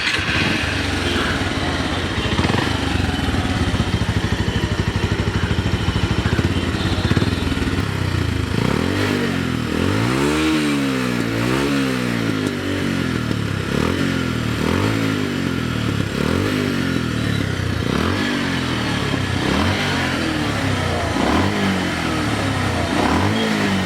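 Bajaj Pulsar 150's single-cylinder engine, breathing through an open K&N cone air filter, running at idle and then, from about eight seconds in, blipped again and again, the pitch rising and falling about once a second.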